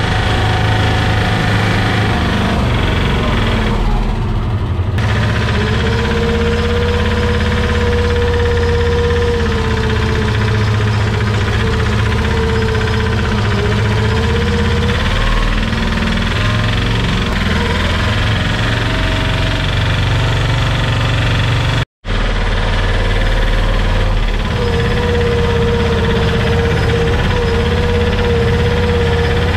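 Single-cylinder engine of a patpat farm vehicle running steadily under way, a loud, knocking rumble whose pitch wavers a little with speed. The sound cuts out for an instant about two-thirds of the way through.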